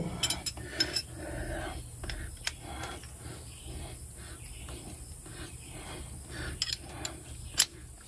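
Hand wrench working the oil drain hose fitting back on at the base of a standby generator engine: a steady run of small metallic clicks and rasps, with a couple of sharper knocks near the end as it is snugged tight.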